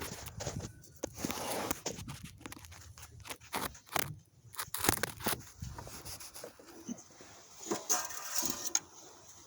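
Engine oil dipstick being pulled from its tube and wiped off with a rag: scattered clicks and knocks, with two stretches of rustling, one about a second in and one near the end.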